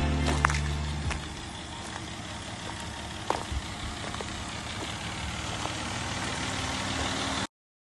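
Background music fading out in the first second, then the steady running and road noise of a slow-moving vehicle, with a few light knocks; the sound cuts off suddenly near the end.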